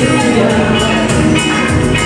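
Music with a singing voice and a steady beat.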